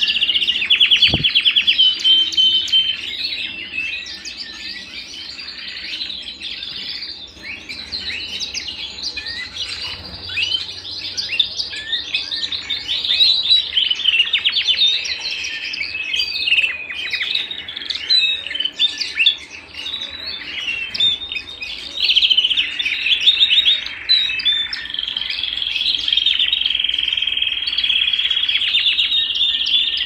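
Domestic canaries singing: long, high-pitched trills and rolls made of rapid repeated notes. The song goes on without a break, fullest near the start and again in the last third.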